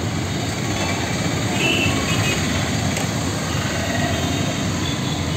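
Steady roar of an LPG gas burner flaming under two long-handled sandwich toasters, mixed with passing street traffic.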